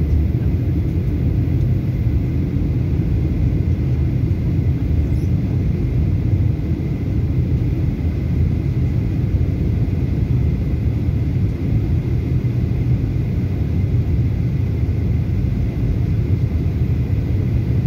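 Steady low rumble of a jet airliner's cabin in flight during the descent, engine and airflow noise heard from a window seat, with a faint steady high whine over it.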